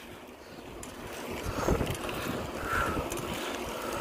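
Wind buffeting the microphone of a camera carried on a moving bicycle: a low, gusty rumble that grows louder about a second and a half in.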